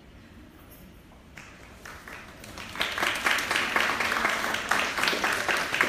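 Audience applauding: a few scattered claps about a second and a half in, swelling into steady clapping from about three seconds in.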